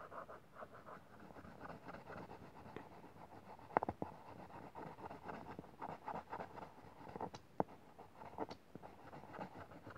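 Coloured pencil scratching on paper in rapid back-and-forth shading strokes. A few sharp ticks are heard over it, the loudest about four seconds in.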